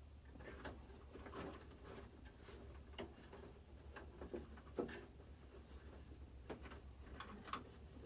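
Faint, irregular clicks, taps and rustles of cables and plug connectors being handled behind an equipment rack while the connections are checked, over a steady low hum.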